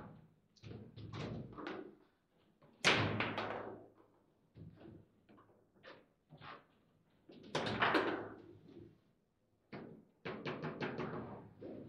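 Table football in play: irregular clusters of sharp knocks and clacks as the ball is struck by the rod figures and bangs around the table. The loudest come about three seconds in and again near eight seconds.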